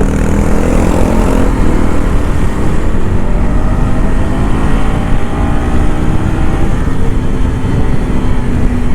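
KTM Duke 250's single-cylinder four-stroke engine through its stock exhaust, under way and pulling steadily, its pitch rising slowly as the bike gains speed.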